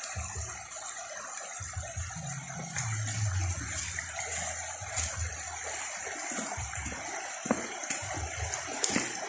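Shallow creek flowing over gravel and stones: a steady rush of water, with a few low rumbles underneath.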